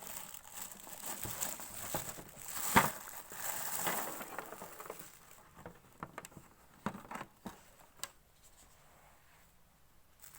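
Packaging crinkling and rustling as a ring light is unwrapped from its box, with one sharp snap about three seconds in. For the second half only scattered light taps and clicks remain.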